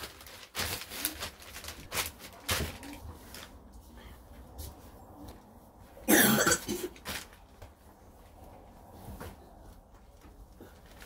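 Newspaper rustling and crinkling in short strokes under rubber-gloved hands, with one loud cough a little after six seconds in.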